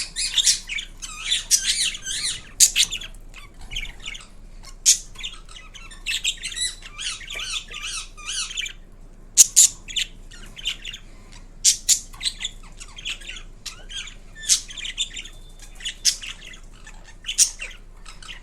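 Indian ringneck parakeet chattering and squawking: runs of short, high, rapid calls broken by sharp single screeches, with a brief pause about nine seconds in.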